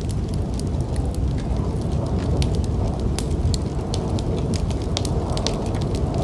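Fireplace wood fire crackling, with many irregular sharp pops and snaps over a steady low rumble.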